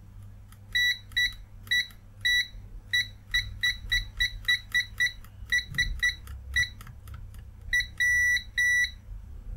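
Continuity bleeper of a Venlab VM-200M multimeter giving about twenty short, high-pitched beeps at irregular intervals as the test probes are tapped together, with two longer beeps near the end. The beeper responds quickly to each contact.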